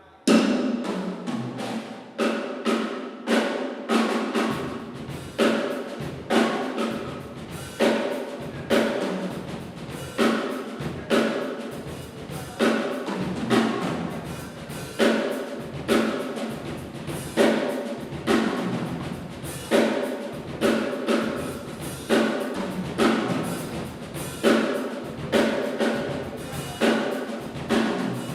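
Drum kit played solo in a steady, busy pattern of rapid strokes on drums and cymbals, starting at once; a bass drum joins about four seconds in and keeps pounding under the pattern.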